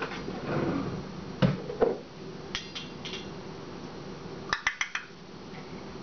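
Scattered knocks and glassy clinks from a glass jar and other things on a kitchen counter being handled by a Congo African grey parrot: two sharp knocks about a second and a half in, a couple of clinks a little later, and a quick run of clinks just past four seconds.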